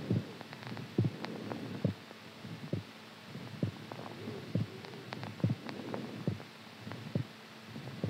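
Heartbeat: slow, steady low thumps a little under once a second. A faint hum rises and falls every few seconds.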